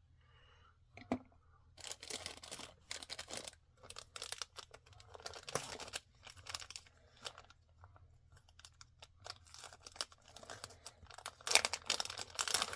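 Packaging being crinkled and torn open by hand, in irregular bursts of crackling that start about two seconds in and are loudest near the end.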